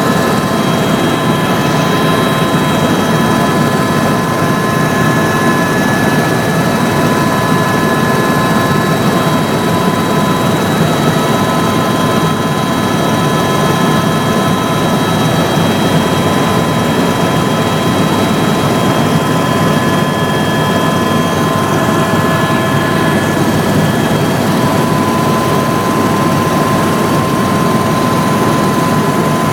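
Helicopter running steadily in flight, heard from on board: a loud, even rumble of engine and rotor noise with a steady high whine that wavers slightly in pitch.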